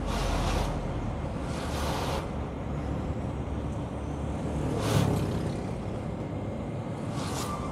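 Trailer truck running steadily with a low rumble, broken three times by short hissing bursts, the loudest about five seconds in.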